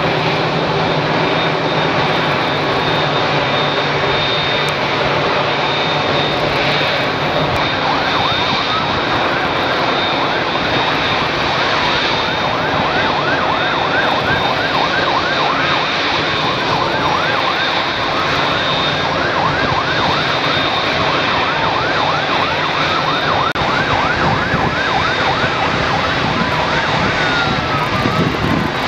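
Boeing 787-8 jet engines running steadily at taxi power. From about eight seconds in, a fast-warbling siren sounds over them, then falls away in long downward sweeps near the end.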